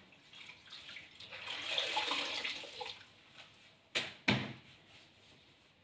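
Water trickling and splashing into a bucket as a wet string mop is wrung out by hand, swelling and fading over about two seconds, followed by two sharp knocks about four seconds in.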